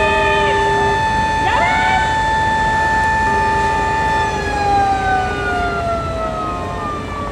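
Several fire engine sirens sound together in held tones, with a short glide up and down about a second and a half in. From about four seconds in, the loudest siren's pitch slides slowly down as it winds down.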